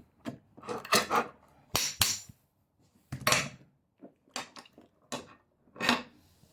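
OKG stainless steel sliding-bolt padlock being locked and unlocked with its key: a string of sharp metallic clicks and clacks at uneven intervals, the lock still working normally after its cylinder was heated in a flame.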